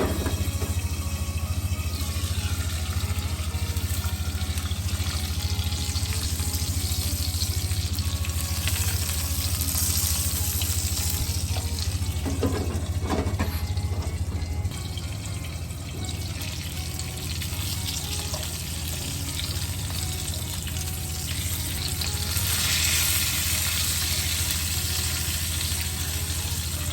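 Food sizzling in a frying pan over a steady low hum, with a few knocks about halfway through.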